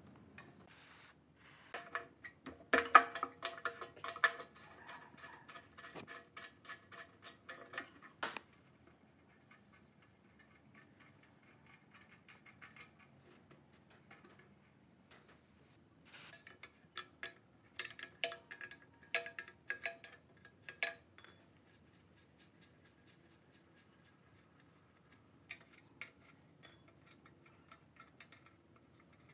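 Metal clinks, taps and rattles from hands working on the parts of a rusty belt-driven air compressor pump as it is taken apart. They come in two clusters of quick knocks, some with a short metallic ring, with a quieter stretch between and a few more taps near the end.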